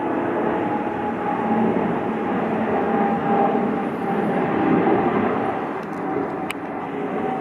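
United Boeing 777 climbing after take-off, its twin jet engines heard from a distance as a steady rushing rumble with a faint drone in it. A brief faint click comes near the end.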